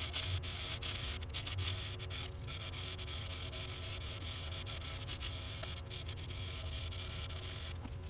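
Sandpaper rubbing against a black walnut wand turning on a wood lathe, an irregular scratchy hiss over the lathe's low steady motor hum.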